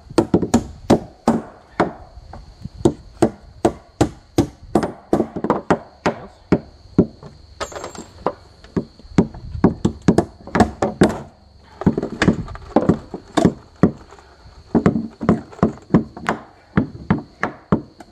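Hammer striking nails in wooden porch deck boards, driving and setting them all the way in: a long run of uneven blows, about two to three a second, with a couple of brief pauses.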